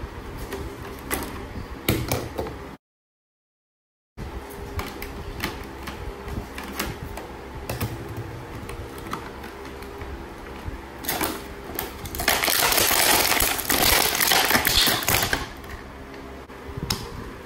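Clear plastic toy bag crinkling and rustling as an action figure is worked out of it, with scattered sharp clicks. The sound drops out completely for about a second and a half near three seconds in, and the crinkling is loudest and densest from about twelve to fifteen seconds in.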